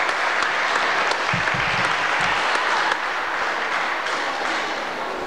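Audience applauding: many hands clapping in a steady patter that eases slightly over the last couple of seconds.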